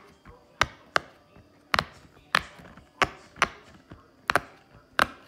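Bubbles of a round silicone pop-it fidget toy being pressed in one by one with a finger, each giving a sharp pop; about ten pops at an uneven pace.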